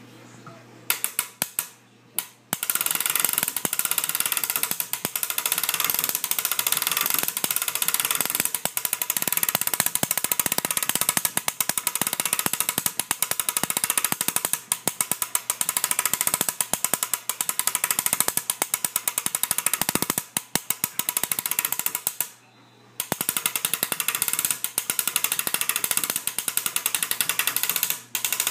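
Wooden gears of a handmade gear-drive mechanism meshing as it runs: a loud, fast, continuous clatter of clicks. A few clicks start about a second in, the steady run begins shortly after, and it stops briefly about three-quarters of the way through before running on.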